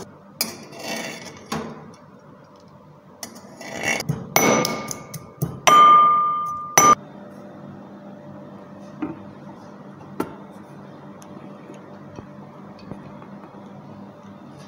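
Kitchen utensils clinking and clattering. A spatula scrapes a frying pan, then a stainless steel grinder jar and its lid are handled. A cluster of sharp knocks comes around the middle, one a metal clang that rings for about a second.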